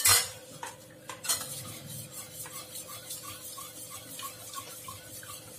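Curd being beaten by hand in a bowl: a utensil stirs and scrapes, with light rhythmic clinks against the bowl about three times a second and a sharper knock at the start.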